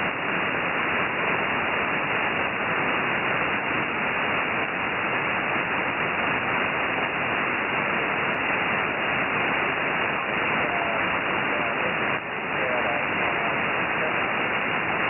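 Steady hiss and static from a shortwave receiver in upper-sideband mode on an idle HF aeronautical voice channel, cut off above about 3 kHz by the receiver's narrow filter. Faint warbling traces rise under the hiss about ten seconds in.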